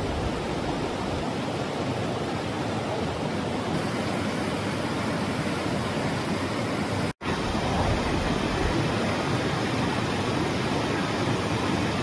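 Steady rush of a mountain river tumbling over rocks in white-water rapids, with a momentary dropout about seven seconds in.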